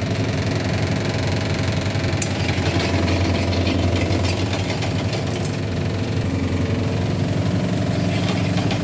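Steady low mechanical hum, like a motor running, with light clicks and ticks over it from about two seconds in.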